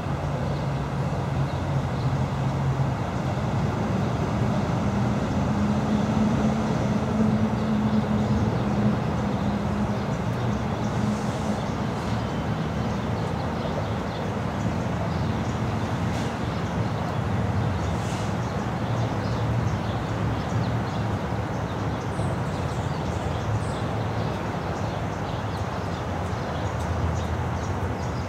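Steady low rumble of vehicle noise, with a low engine hum that comes and goes.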